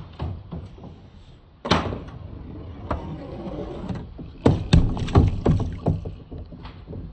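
Billiard balls rolling down a handmade wooden marble-run course, a steady rumble broken by hard clacks and knocks as they hit the track and each other, with a dense run of impacts about two thirds of the way through.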